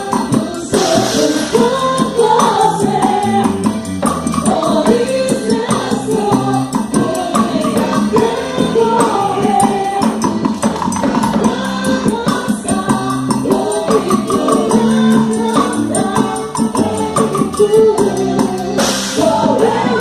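Quadrilha junina dance music: group singing over a steady beat with a tambourine-like shaken percussion.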